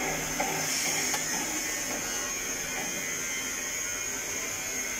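Metal lathe running with a steady high whine, spinning an offset tractor front-axle steering arm between chuck and tailstock centre. A faint beat about twice a second is heard in the first second, then fades.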